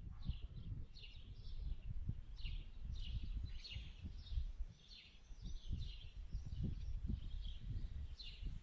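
Wind rumbling on the microphone while a small bird chirps over and over, short falling chirps about every half second.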